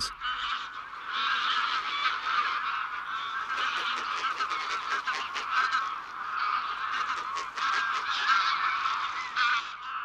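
A large flock of greylag geese honking, many overlapping calls at once in a continuous chorus.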